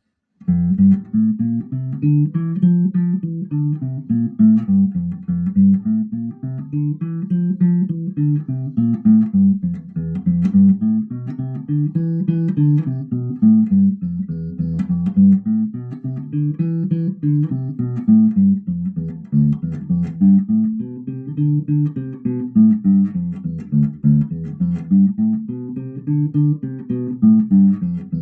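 Peavey Zodiac EX precision-style electric bass played clean, with no effects, through a Fender Rumble 15 W bass amp. It plays a steady, repeating bass line whose notes climb and fall in a phrase about every two seconds.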